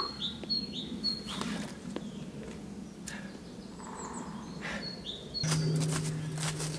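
Small songbird calling: a high, short note sliding down, repeated, in the first second and again about five seconds in, over quiet forest ambience. Near the end, footsteps crunching through dry fallen leaves, with a low steady hum coming in at the same moment.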